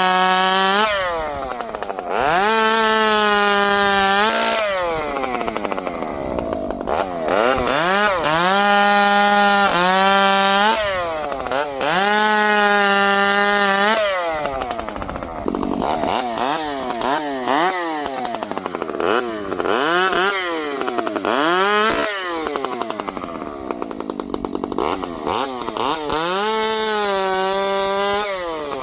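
Dolmar two-stroke chainsaw revved without cutting: the engine climbs to a high, steady pitch at full throttle, holds it for a second or two, then drops back toward idle, again and again. The longer revs come near the start and about a third of the way in, with shorter blips through the middle and one more full rev near the end.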